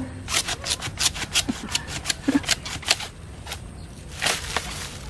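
Dry bamboo leaves and sheaths crackling and snapping as bamboo shoots are harvested with a machete: a quick irregular run of sharp crackles, thinning out after about three seconds.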